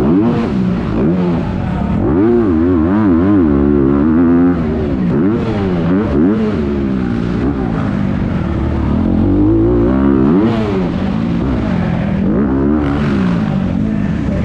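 Several dirt bike engines racing together, revving up and down over and over, their pitches overlapping and rising and falling every second or so.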